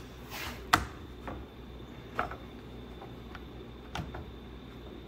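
A brief scraping rustle, then a sharp wooden knock just under a second in, followed by a few lighter scattered clicks and taps: hands working pieces of wood and tools on a workbench.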